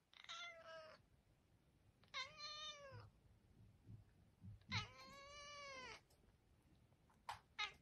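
Domestic tabby cat meowing three times, each a drawn-out call that rises and then falls in pitch, the last the longest. Two brief clipped calls follow near the end.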